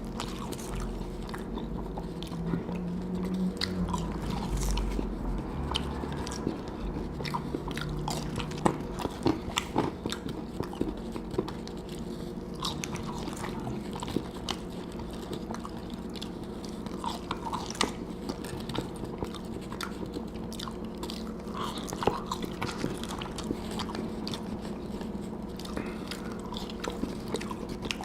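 Close-up eating sounds from a Whopper burger and French fries: biting, wet chewing and occasional crunching, with many short irregular clicks over a steady low hum.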